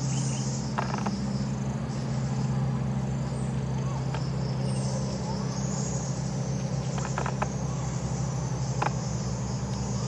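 Steady high-pitched insect chorus with a low steady hum underneath, and a few short sharp calls of a stripe-throated bulbul, a quick cluster of them about seven seconds in.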